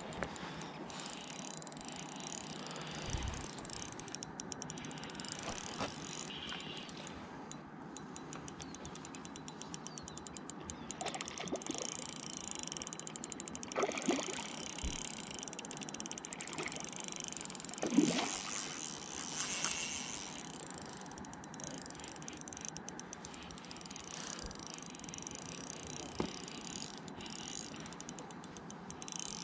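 Ultralight spinning reel being cranked, its gears ticking in a fast, steady run, with a few knocks around the middle, the loudest a little past halfway.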